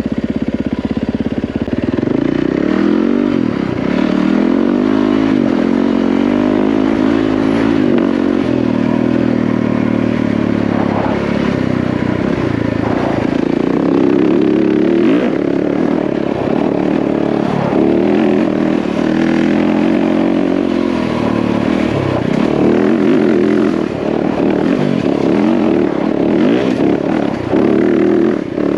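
Yamaha WR450F dirt bike's single-cylinder four-stroke engine running under way on a trail ride, its pitch rising and falling again and again with the throttle.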